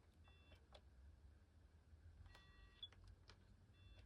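Near silence with faint clicks and three short, quiet electronic beeps, the kind made by buttons pressed on a payphone's keypad.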